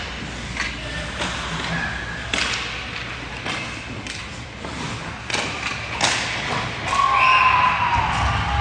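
Scattered thuds and knocks in a large room, with a squeaky tone sliding slowly downward near the end.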